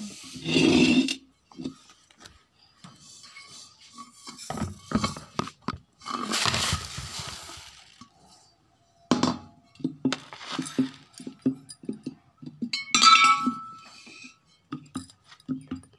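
Kitchen containers and utensils being handled: scattered clinks and knocks, a rushing hiss lasting about two seconds a third of the way in, then a quick run of knocks and clinks, the brightest clink ringing briefly near the end.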